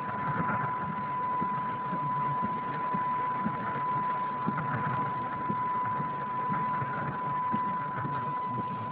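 Heavy rain falling on a car, heard from inside the cabin as a steady hiss with many small ticks of drops, with a steady high tone over it.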